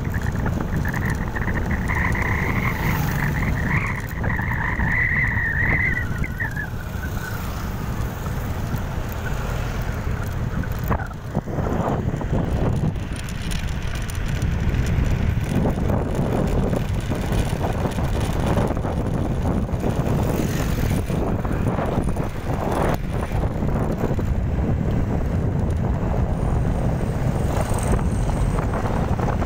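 Motorcycle riding along a road: engine running under wind buffeting on the microphone, with gusty surges of rushing noise. A high wavering chirr is heard over it at first and fades out about six or seven seconds in.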